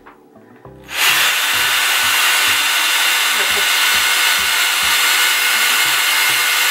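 Cordless drill starts about a second in and runs at a steady speed, its bit boring through the bottom of an aluminium drink can.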